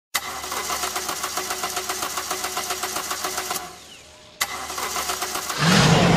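DeLorean engine starting, as a film sound effect. The starter cranks in rapid, even pulses for about three and a half seconds and stops. It cranks again and catches near the end, and the engine fires into a louder rumble.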